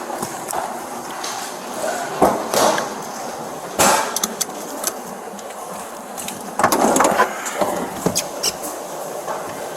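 Handling noise on a body-worn camera: rustling and scraping with several sharp knocks and clunks, the loudest about four seconds in and a cluster around seven seconds.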